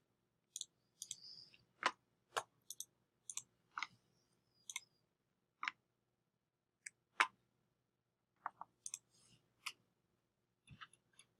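Computer mouse clicks: short sharp clicks at irregular intervals, some in quick pairs, with brief pauses between.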